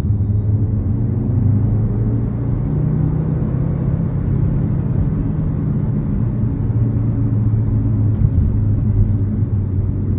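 Audi TT RS turbocharged five-cylinder engine running, heard from inside the cabin, with a faint high-pitched whine over it that climbs over the first few seconds and then slowly falls, following engine speed. The whine sounds like electrical interference; the owner suspects an electrical short, a grounding fault, a whistling fan or the turbo.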